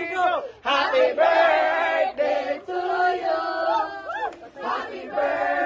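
A small group of people cheering and calling out together, many voices at once, with a rising whoop about four seconds in.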